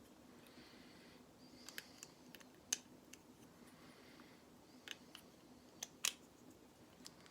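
Small plastic Lego pieces being handled and pressed into place, giving a few separate sharp clicks and taps, the loudest about a third of the way in and again near the end.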